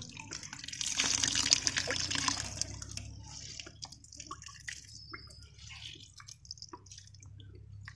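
Wet, mashed mahua flowers squeezed by hand over a steel bowl, their juice splashing and dripping back into it. The squelching and pouring is loudest for a second or two near the start, then thins to scattered drips.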